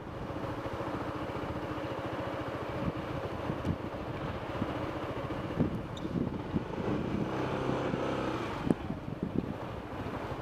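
Motorcycle engine running at low revs as the bike moves slowly, a rapid, even firing pulse.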